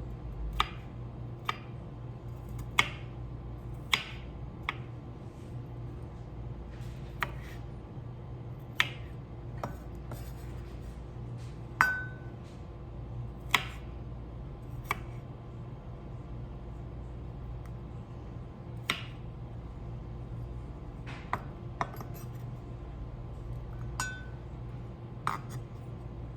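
Dishes and utensils being handled in a kitchen: scattered sharp clinks and knocks, irregular, about one every second or two, over a steady low hum.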